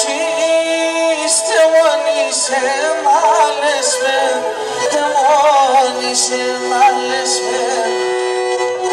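A man sings an ornamented melody into a microphone, accompanied by a bowed Pontic lyra (kemenche) holding long steady notes beneath the voice.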